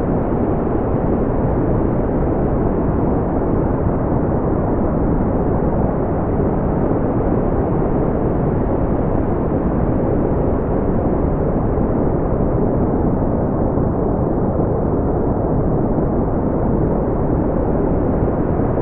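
Brown noise: a steady, deep rushing hiss, strongest in the low end and rolling off toward the highs, without change.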